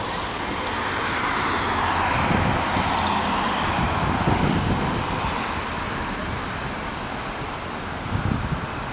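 Road traffic on a multi-lane road passing close by: a steady rush of tyres and engines that swells over the first few seconds as vehicles go past, then eases off after about five seconds.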